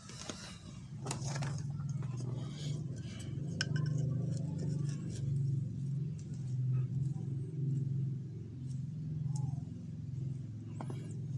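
Light metallic clinks and taps of a steel ruler being handled and laid against a wooden table tennis blade, over a steady low hum.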